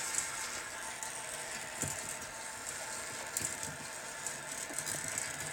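Light, irregular clicking and ratcheting of a cuckoo clock movement's gears being handled.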